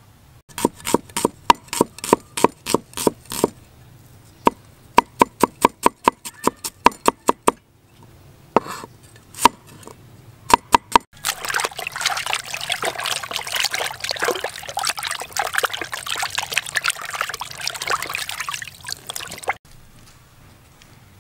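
Large knife chopping on a wooden chopping board in quick, even strokes, about four or five a second, then a few scattered chops. Then water pours steadily for about eight seconds and cuts off suddenly.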